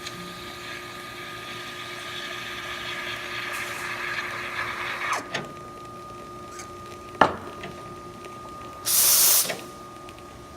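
La Marzocco espresso machine pulling a test shot: a steady hum with a hiss that builds and then stops about five seconds in. A sharp click follows about two seconds later, then a short, loud hiss near the end.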